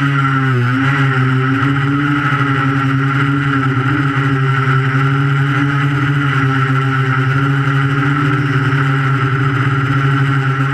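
Quadcopter's electric motors and propellers humming steadily, heard close up from a camera mounted on the drone. The pitch dips briefly about half a second in, then holds.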